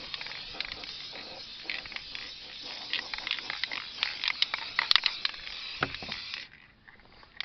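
Aerosol spray paint can spraying in a steady hiss with scattered clicks and crackles, cutting off suddenly near the end.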